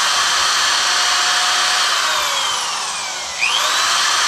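Corded electric drill running off the power station's inverter: the motor spins at full speed, slows down about two seconds in as the trigger is eased, then spins back up near the end. It runs without the power station cutting out on overload.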